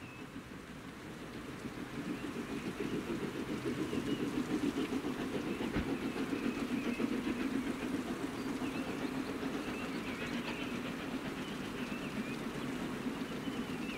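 Royal Scot class 4-6-0 steam locomotive No. 46100 working a train, its exhaust and the running of the train growing louder over the first few seconds, then holding steady.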